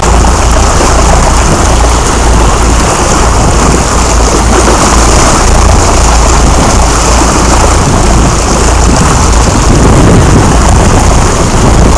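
Fishing boat under way: its engine running with the wake churning behind, and wind buffeting the microphone, giving a loud, steady rumble and rush.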